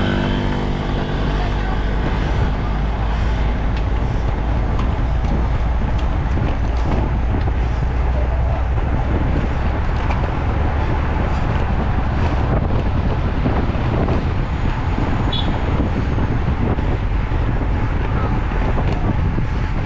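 Steady wind rushing over the microphone with a vehicle's low running rumble underneath.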